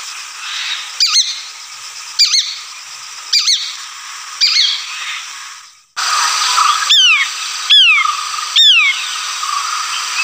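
Shikra calling. First comes a repeated sharp double note about once a second over a steady background hiss. After a cut about six seconds in, a second call type follows: louder, high whistled notes that slide steeply down, three of them in quick succession.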